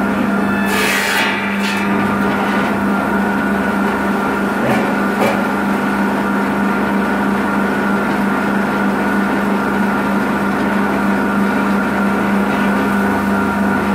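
Electric log saw bench with a carbide-tipped circular blade, running with a steady hum and a constant higher tone. About a second in, the blade cuts briefly and harshly through a branch, then spins freely again. Two light knocks come around five seconds in.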